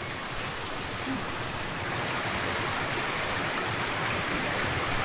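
Steady rush of pouring, splashing water, consistent with water running into a hot spring bathing pool; it grows slightly louder about two seconds in.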